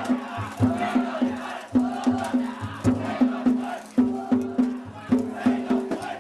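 Danjiri festival music (narimono): drums and small gongs beating a fast, even rhythm, with a crowd shouting chants over it.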